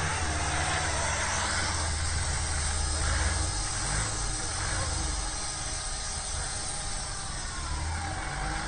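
Heavy truck engine running under load as it tows a van through deep snow on a tow line: a deep rumble that eases off after about three and a half seconds, over a steady hiss.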